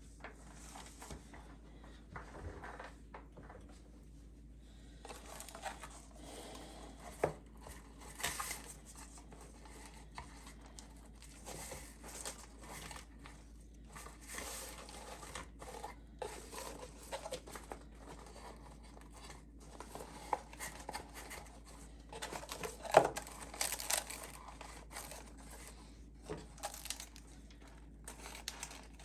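Plastic wrapping rustling and crinkling as it is handled, with scattered light clicks and knocks; the sharpest knock comes about 23 seconds in.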